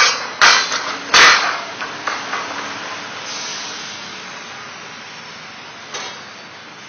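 Heavy metal-on-metal clanks as pipe is latched on a well service rig: three sharp strikes in the first second and a half, then steady background noise with one lighter knock about six seconds in.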